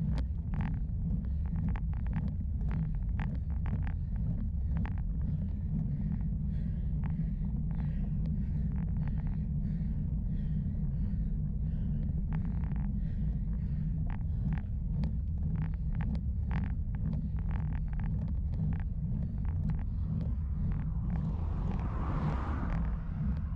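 Steady low rumble of wind buffeting the microphone of a bicycle-mounted camera on a ride, with frequent sharp ticks and clicks. A rushing noise swells and fades near the end.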